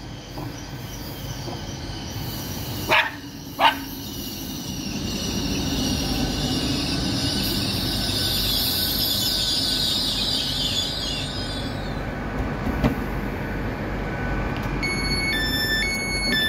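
A GWR Hitachi Intercity Express Train runs into the station and brakes to a stop, its brakes and wheels giving a high squealing hiss over the rumble. Two short, loud sharp sounds come about three seconds in. Near the end, the door-open button panel beeps in a repeating pattern of stepped tones.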